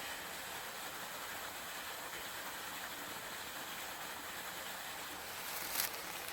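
Steady rush of flowing stream water, an even hiss, with a brief rustle near the end.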